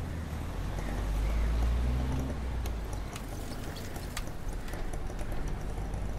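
Street background noise: a low rumble that swells about a second in and fades again, with a few scattered sharp clicks.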